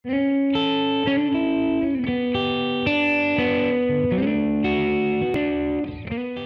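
Intro music: a short run of sustained chords that changes every half second to a second, ending on a held chord about six seconds in that starts to fade away.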